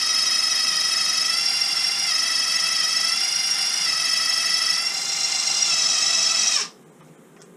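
Cordless drill running steadily, spinning the input shaft of a Honda HRX537 mower's hydrostatic drive to circulate fresh oil and purge air while it is filled and bled. A steady whine that dips slightly a few times under load and stops suddenly near the end.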